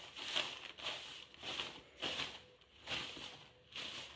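A broom scrubbing along a wooden window frame in regular back-and-forth strokes, about seven in four seconds, working off old shoji paste.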